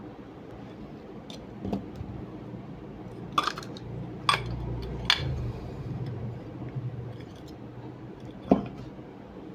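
Five sharp metallic clinks and knocks, as of small metal parts or tools being handled and set down, the loudest near the end. A low hum rises in the middle.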